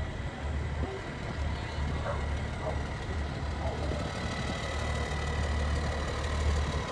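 Large diesel truck engine idling with a steady low rumble, with faint voices of people in the background.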